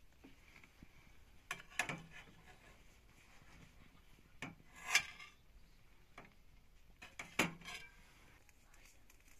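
Metal spoon and spatula scraping and clinking against a cooking pot and a metal serving tray as stuffed peppers are lifted out and set down, in three short bursts of clatter.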